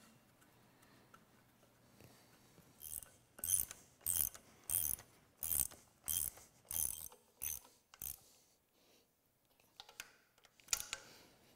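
Hand ratchet wrench clicking as water pump bolts are run down. There is a steady run of about nine ratchet strokes, roughly one every half-second, then a couple more strokes near the end.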